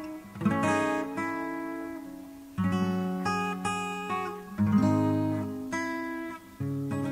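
Acoustic guitar strummed, a new chord struck about every two seconds and left to ring.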